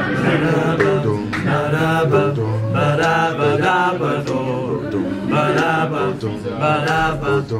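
A small vocal group singing wordless close harmony, with a low bass part stepping from note to note beneath the chords: the introduction leading into the song's first verse.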